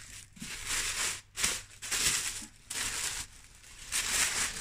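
Tissue paper crinkling and rustling in irregular bursts as it is pulled open and unwrapped from a gift item.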